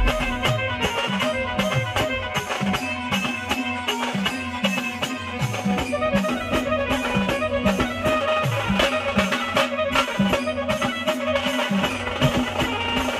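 Khandeshi sambal band music: sambal drums struck with sticks in a fast, steady rhythm, with a wind instrument playing a melody over them.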